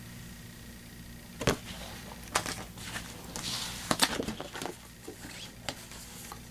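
Paper pattern charts and a plastic shopping bag being handled: scattered sharp taps and rustles as one chart is put down and the next pulled from the bag, over a faint steady low hum.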